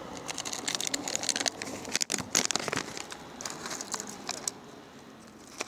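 Plastic wrapper being crinkled and handled: a quick, irregular run of crackles and rustles that is loudest about halfway through and dies down near the end.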